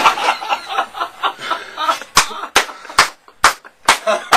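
People laughing, then from about halfway through a run of sharp smacks, roughly two to three a second.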